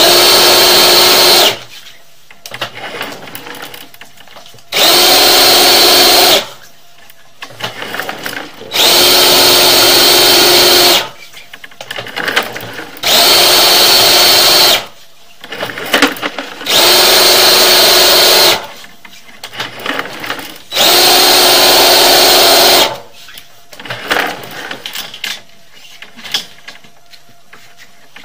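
Electric drain-cleaning machine motor run in six short bursts of about two seconds each, roughly every four seconds, with a steady whine, as it works into a sewer pipe clogged with hardened grease. Quieter rattling and knocking between the bursts.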